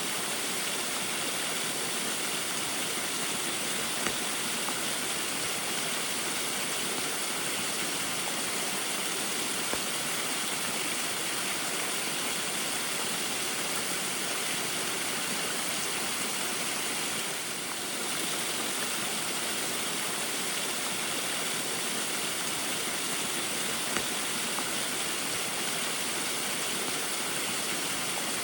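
Small waterfall in the rain: a steady rush of falling and splashing water, with a few faint ticks and a brief slight dip in level about seventeen seconds in.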